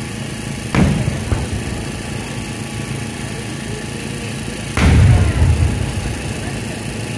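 Two aerial firework shells bursting with loud booms, one about a second in and a louder one near five seconds in, each followed by a low rumbling echo.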